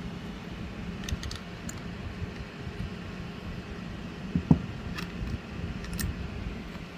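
Small metal parts and tools handled on a workbench: a few light clicks and one louder knock about four and a half seconds in, over a steady low hum.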